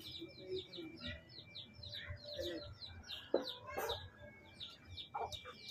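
Chickens peeping and clucking, a fast, even run of short high chirps. There are two sharp clicks about three and a half seconds in.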